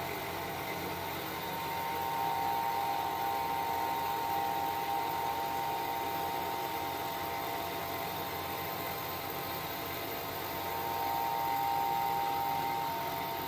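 Bridgeport vertical milling machine running an end mill along the edge of a cast square, a steady whine with a constant hiss of cutting. One of its tones drops away near the end.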